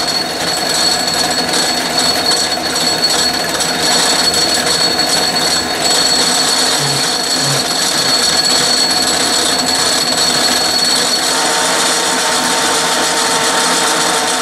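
Belt-driven Atlas metal lathe running under power during a light threading pass in steel: a steady mechanical whine of motor, belts and gearing. A further steady tone joins about eleven seconds in.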